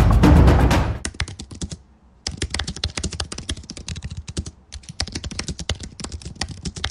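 Rapid typing on a computer keyboard, the keystrokes clicking in quick runs broken by two short pauses. Loud intro music cuts off about a second in, just before the typing starts.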